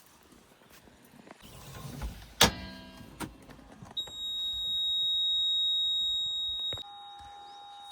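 A sharp metallic clang, then a vehicle's ignition warning buzzer: a high steady beep lasting about three seconds that drops to a lower, quieter steady tone, with the ignition on and the engine not yet running.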